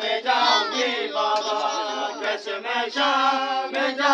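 Voices singing a noha, a Shia Muharram mourning lament, in a chanting, choir-like style.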